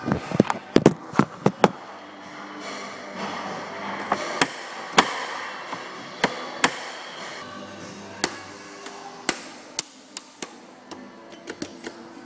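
Irregular sharp taps and knocks, several in quick succession at the start and then about one a second, over a steady hiss, with faint background music.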